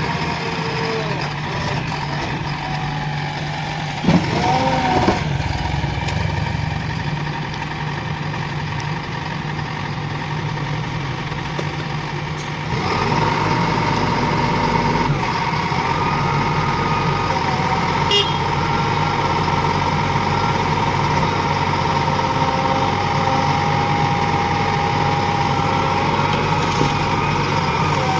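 JCB 3DX Plus backhoe loader's diesel engine running steadily. About thirteen seconds in it gets louder and a steady whine comes in, as the machine works under more load.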